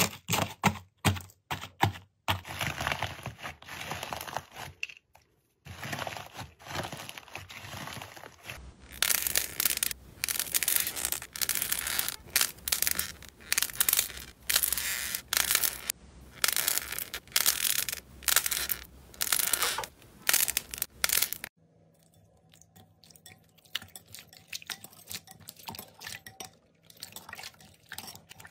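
Hands working slime, heard across several short clips: dense crackling and tearing as foam slime is pulled apart and squeezed, loudest through the middle. It gives way near the end to quieter, sparser wet squishing as clear slime is kneaded in a bowl of water.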